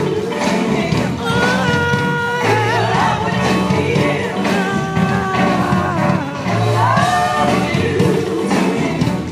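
Live R&B/funk band with backing singers, held notes sung in harmony over bass and drums.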